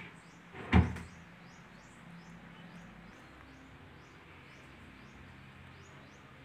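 A wooden cabinet door on concealed hinges knocks shut about a second in. Then a faint high chirping repeats about twice a second over low room noise.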